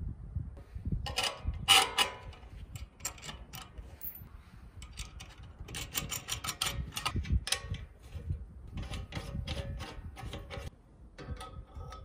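Small stainless steel bolts, nuts and fittings clinking and clicking against a stainless steel food-container stove body as they are fitted, in irregular clusters of sharp metallic ticks, some ringing briefly.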